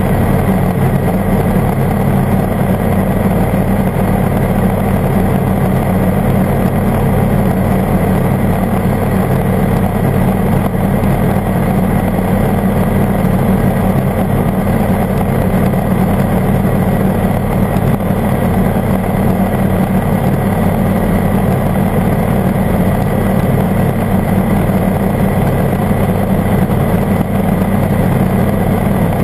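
Ultralight airbike's engine and pusher propeller running at steady cruise power in flight, one unchanging drone, with wind noise from the open airstream.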